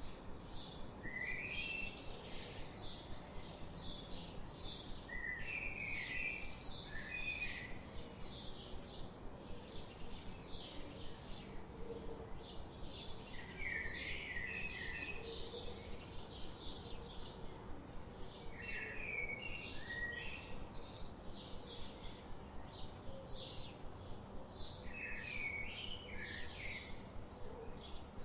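Birds calling in forest: a steady run of short high chirps, about three a second, with a lower warbling phrase breaking in every five or six seconds, over a faint background hiss.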